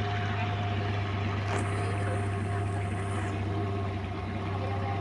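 Small motorboat's engine running steadily under way, a constant low drone with a steady hum above it.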